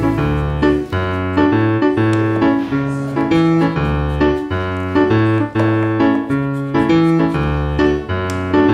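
Background instrumental music: notes struck at a steady pace over a moving bass line.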